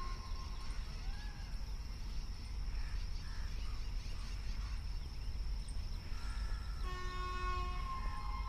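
Open-air rumble with a steady high-pitched drone and a few chirps while a train approaches from a distance; about seven seconds in, the approaching electric locomotive sounds its horn, a multi-note chord that is still sounding at the end.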